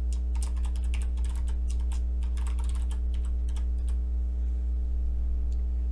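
Typing on a computer keyboard: a quick run of keystrokes over the first few seconds while a line of code is entered, then a few isolated key presses. A steady low electrical hum lies underneath and is the loudest part.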